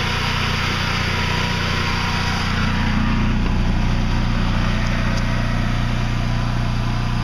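Onan 20 kW, 3600 RPM standby generator engine running steadily with its muffling lid closed, a low, even hum. The hum shifts a little and grows slightly louder about three seconds in.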